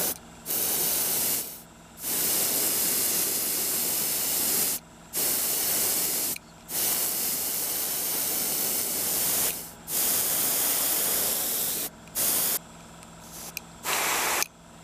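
Airbrush spraying paint with a steady hiss that starts and stops again and again as the trigger is worked, in bursts lasting from under a second to nearly three seconds.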